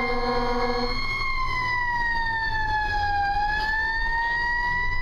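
Fire engine siren wailing, its pitch sinking slowly and then climbing back near the end, over the truck's engine rumble. A steady horn blast overlaps it and cuts off about a second in.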